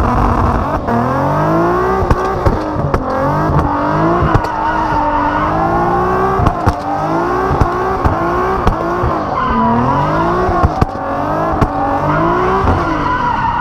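Car engine revved hard, its pitch climbing and dropping over and over as the car is driven hard around the lot, with short sharp snaps between the revs.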